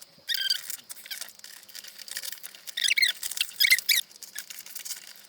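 Adhesive tape being peeled off cardboard and plastic packaging, squeaking and screeching in short pulls with rustling between: one pull near the start and two louder ones close together around the middle.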